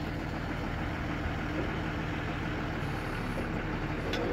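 Heavy diesel engine running steadily at a low, even idle.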